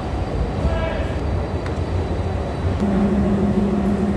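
Steady low mechanical rumble, with a brief higher-pitched tone about a second in and a steady low hum that sets in about three seconds in.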